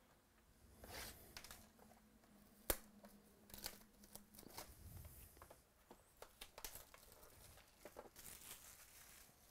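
Faint crinkling and tearing of the plastic shrink wrap on a sealed trading card box as it is opened by hand, in short irregular rustles with one sharp click a little under three seconds in.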